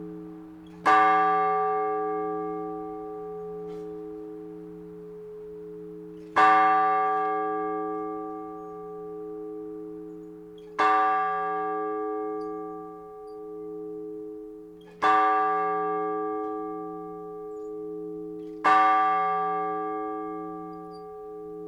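Blagovest on a single Orthodox church bell: five strokes at slow, even intervals of about four to five seconds. Each stroke rings on and fades into the next over a wavering low hum.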